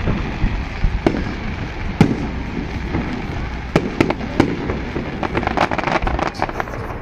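Fireworks bursting: several sharp, separate bangs, then a dense run of quick crackling pops from about five seconds in, over a steady background hiss.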